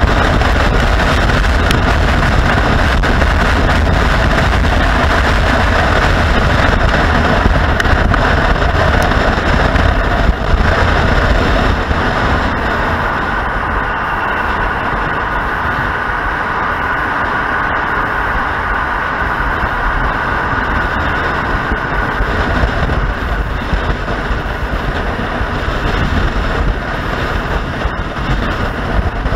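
Motorcycle running at road speed, with wind rushing over the microphone; the sound eases slightly about twelve seconds in.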